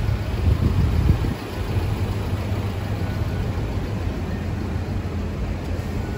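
Road traffic on a city street: vehicle engines making a low, steady rumble, louder in the first second and a half and then settling.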